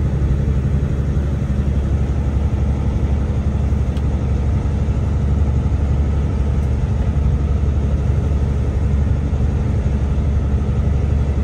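Truck's diesel engine and road noise heard from inside the cab while driving: a steady low rumble that holds even throughout.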